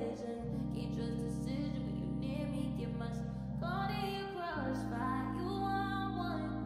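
Background music: a song with singing over held low notes, the low notes changing about half a second in and again about four and a half seconds in.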